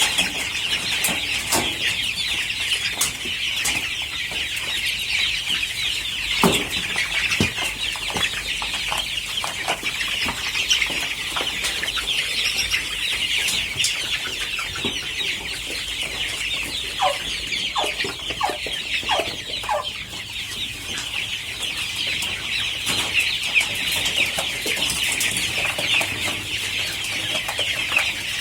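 A large flock of kampung chickens peeping and clucking without a break, many high calls overlapping, with a few louder single clucks standing out now and then.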